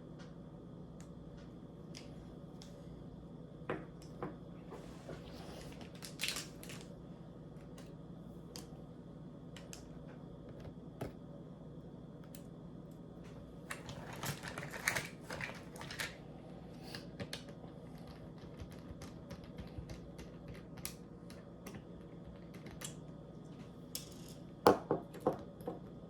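Small clicks, taps and scrapes of tools and parts being handled on an opened laptop, scattered through, with a denser run of scraping and clicking a little past halfway and a few sharper knocks near the end, over a faint steady hum.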